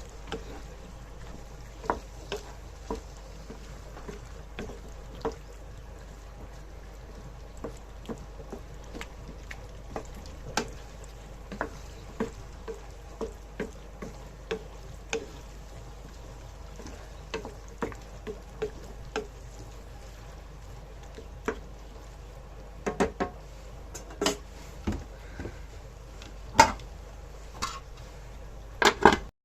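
A utensil knocking and clinking against a cooking pot as food is stirred, in light irregular knocks once or twice a second, with a cluster of louder knocks near the end, over a steady low hum.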